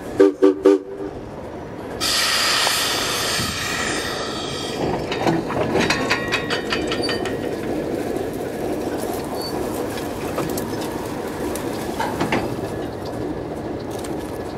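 Old steel passenger coaches rolling slowly along the track: a steady rumble of wheels on rail. A high metallic wheel squeal lasts a couple of seconds, and squeaks and clanks follow a little later. Three short loud blasts come right at the start.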